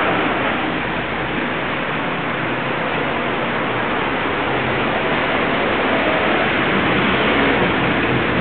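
City street traffic: cars driving past, a steady wash of tyre and engine noise.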